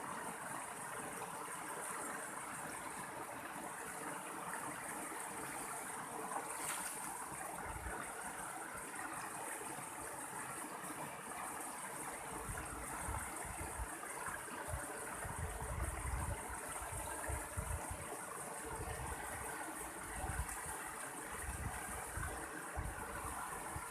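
Mountain stream water flowing steadily, with irregular low rumbling in the second half.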